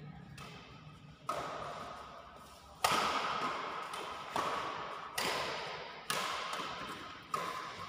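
Badminton rackets striking a shuttlecock in a doubles rally: six sharp hits about a second or a second and a half apart, each echoing in a large hall.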